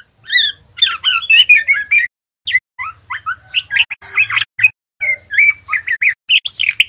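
Juvenile male white-rumped shama in spotted fledgling plumage, singing subsong: quick, varied chirps and short twittering phrases with brief pauses. This is the halting chatter (ngeriwik) of a young male still learning its song.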